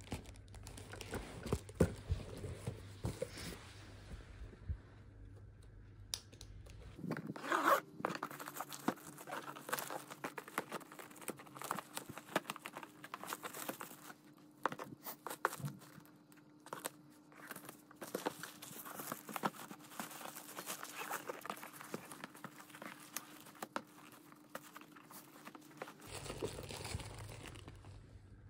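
A black plastic courier mailer being torn open and pulled off a cardboard box: crinkling and rustling plastic with repeated sharp ripping sounds.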